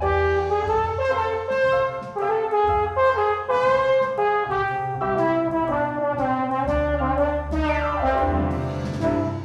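Trombone playing a bluesy jazz melody over a backing track with sustained low bass notes, the line moving in short, connected notes and sliding down in pitch near the end.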